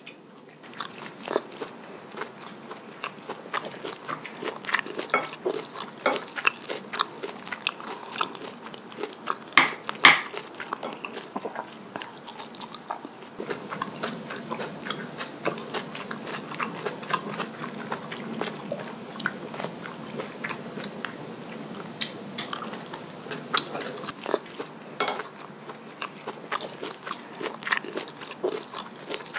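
Close-miked eating sounds: a person chewing mouthfuls of cockle bibimbap, with irregular moist clicks and crunches, one louder crunch about ten seconds in.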